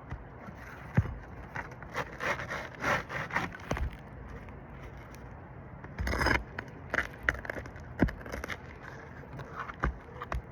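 Scraping and sharp clicks of a metal pry tool working under roof shingles to loosen and pull out nails, in irregular bursts.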